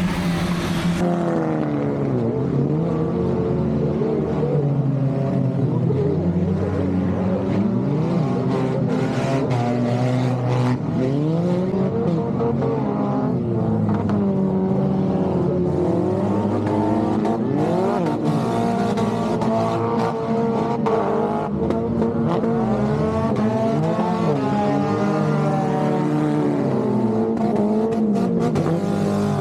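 Several speedway car engines running at once, their pitches repeatedly rising and falling as the cars accelerate and ease off around the track.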